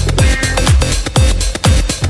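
Electronic dance music with a steady, heavy kick-drum beat, about two kicks a second.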